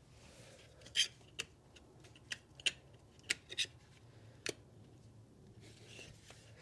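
Irregular sharp plastic clicks and light knocks, about seven in all, from the ignition coil packs of a 2.0 TSI engine and their plastic connectors being handled and set back into the spark plug holes.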